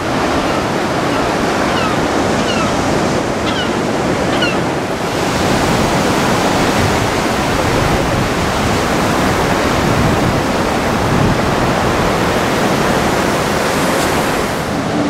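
Ocean surf washing steadily onto a wide sandy beach, with wind on the microphone. A few short high chirps sound over it in the first five seconds.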